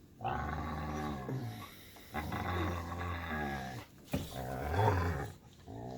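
A dog making drawn-out, wavering growl-like 'talking' sounds in play, in four stretches of a second or two each.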